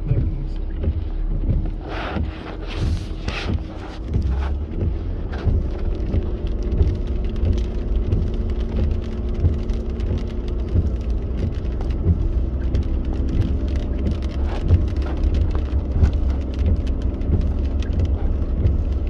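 Cabin sound of a Jeep Cherokee Trailhawk driving slowly on a wet dirt road: a steady low engine and tyre rumble with a faint hum, and rain pattering on the body and windshield as many small ticks.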